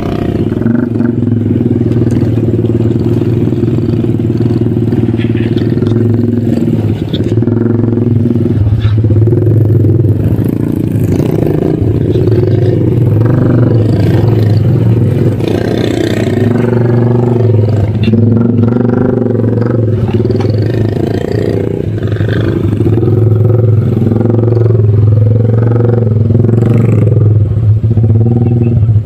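Honda EX5 underbone motorcycle's single-cylinder four-stroke engine running under load, its note rising and falling with the throttle as it pulls through deep mud.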